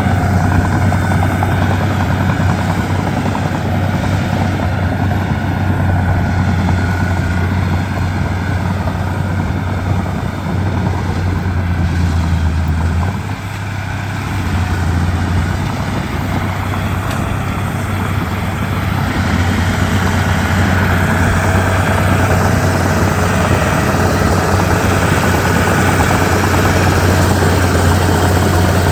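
Komatsu D31P bulldozer's diesel engine running steadily with a low drone. It eases off briefly about halfway through, then builds back up.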